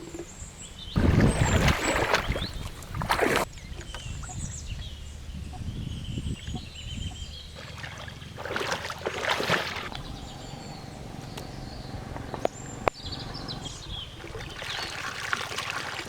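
Water splashing and sloshing in three bursts, the first and loudest about a second in, another near the middle and a last one near the end, with birds chirping faintly between them.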